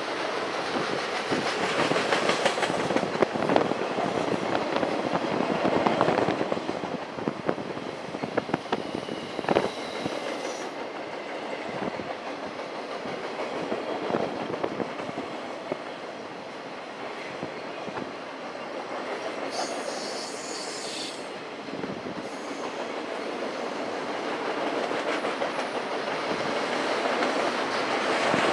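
A freight train of flatcars rolling past below, its wheels clicking and clacking over the rail joints, busiest in the first ten seconds, under steady wind noise on the microphone.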